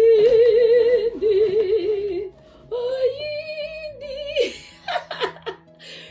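A woman's long drawn-out sung exclamation of delight, two held notes with a wavering vibrato, the second higher. A few short rustles and clicks of cardboard packaging being handled follow near the end.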